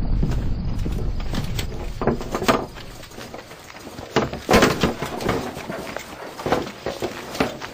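Film sound effects of a great stone rolled away from a rock tomb: a low rumble dying away over the first two or three seconds, then scattered knocks and clatters of debris and fallen guards' armour.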